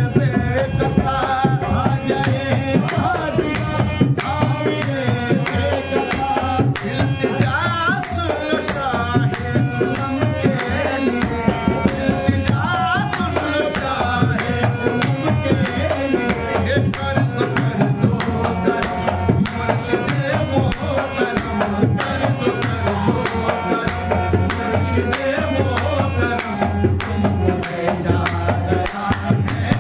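Qawwali: a lead singer and chorus singing over a hand-pumped harmonium, with a hand drum and rhythmic hand-clapping.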